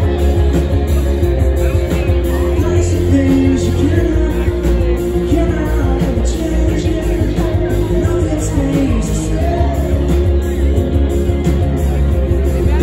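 Live rock band playing a song with a singer, heavy bass and guitar, heard loud from within the crowd.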